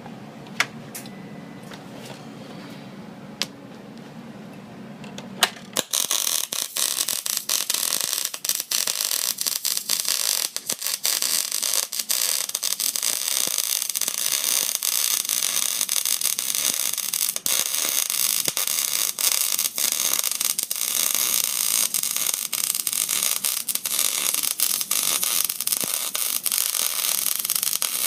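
MIG welding arc on steel plate: after a low hum and a few sharp clicks, the arc strikes about six seconds in and keeps up a steady, dense crackle that sounds similar to popcorn being made. The uploader gives this steady crackle as the sound of a good weld with good penetration.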